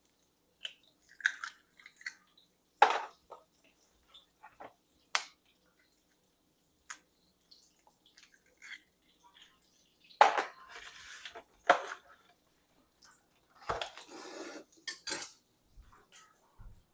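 Eggs being cracked against a bowl: scattered sharp knocks with clinks of dishes and utensils, and short clattery stretches about ten and fourteen seconds in.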